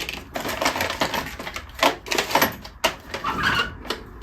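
Rummaging through tools and small objects in a workshop, with a run of irregular clattering knocks and clicks, while searching for center drills.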